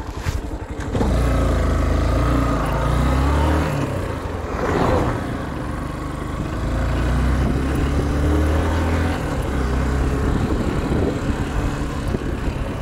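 A motor vehicle's engine picking up revs about a second in as it pulls away, then running on with its pitch shifting in steps, picked up by a phone in a pocket. A brief rustle about five seconds in.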